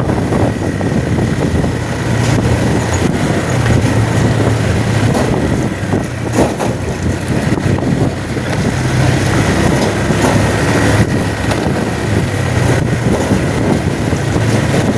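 Motor vehicle travelling along a road: a steady low engine drone under continuous road and wind noise.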